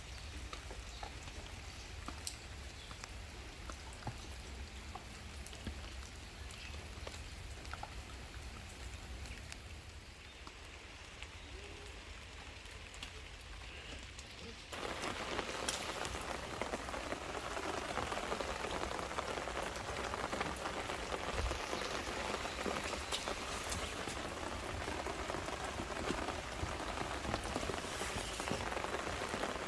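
Rain falling, with scattered drips at first, then a sudden change about halfway through to louder, denser rain.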